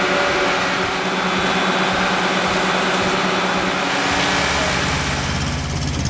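Heavy machinery running with a steady engine drone. About four seconds in, a deeper, evenly pulsing engine sound takes over.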